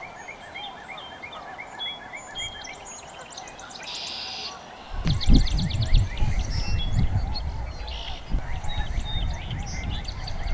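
Distant chorus of tundra swans calling, with small birds chirping and trilling over it. About five seconds in, a low rumble joins, like wind on the microphone.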